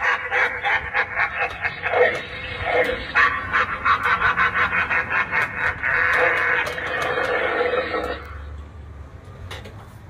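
Rotten Harvester Halloween animatronic playing its recorded sound effect through its built-in speaker: a harsh, rapidly pulsing creature-like voice that stops about eight seconds in.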